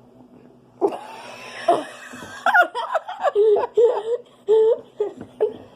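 Laughter: after a quiet first second, a person breaks into laughing, with a run of short rhythmic laughing bursts that continues to the end.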